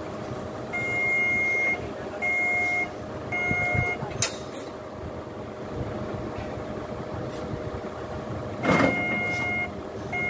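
A vehicle's backup alarm beeping in long steady tones, three in a row, then silent for about five seconds before beeping again, over the steady hum of an idling engine. A sharp knock about four seconds in.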